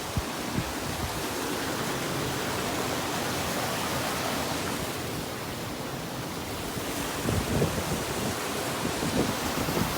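Steady rush of water from a creek waterfall and its rapids, an even unbroken hiss, with a few faint low bumps about seven seconds in.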